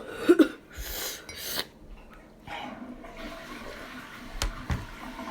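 A person reacting to very spicy food: a short vocal cry, then hissing, sharp breaths through the mouth, with a quieter haze of breathing and two small clicks later on.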